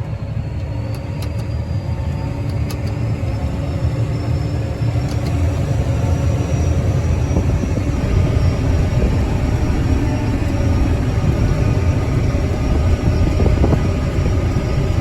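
Combine harvester driving along with its engine running in a steady low rumble and a thin high whine that slowly rises in pitch, gradually getting louder.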